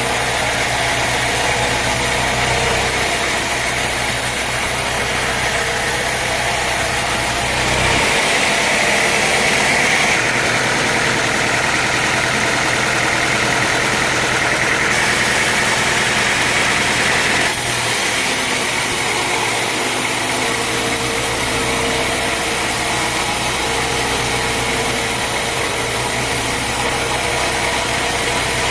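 A sawmill's engine running steadily. From about eight seconds in until about seventeen seconds, a louder, higher noise comes in, typical of the saw cutting through a log.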